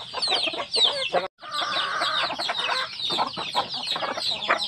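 A flock of chickens clucking and calling, many short overlapping calls at once, breaking off for a moment about a second in.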